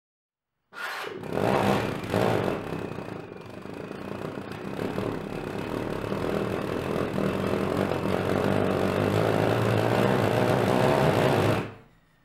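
Homemade pulsejet made from an empty gas canister, burning alcohol vapour, catching on ignition and running. It starts about a second in with a couple of surges, settles into a steady, fast-pulsing drone, and stops abruptly near the end.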